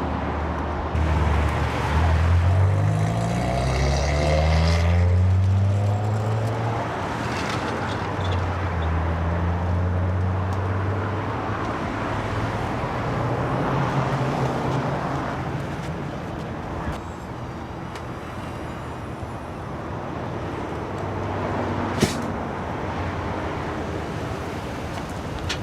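Road vehicle engine running with road noise, its pitch rising for a few seconds early on as it accelerates, then settling to a steady drive. A single sharp click sounds near the end.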